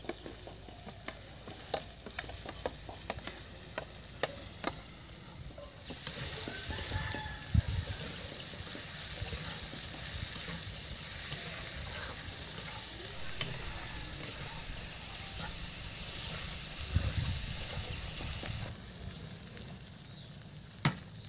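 Potato pieces frying in hot oil in a pan, sizzling, while a metal spatula stirs them with scattered clicks and taps against the pan. The sizzle gets louder about six seconds in and drops back a few seconds before the end.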